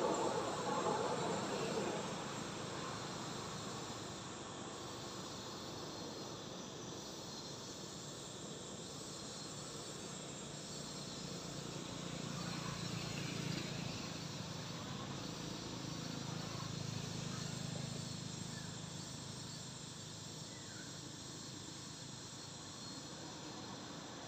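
Outdoor forest ambience of insects chirping steadily, with a faint low hum that swells and fades about halfway through.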